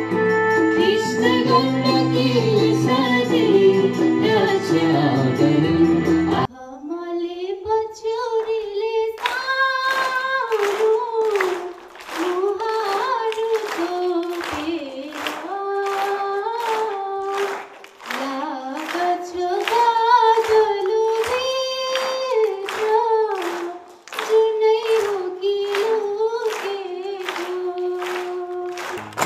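Music for the first six seconds or so, then a girl singing solo and unaccompanied into a microphone: a slow melody of long held notes, phrase after phrase with short breaths between.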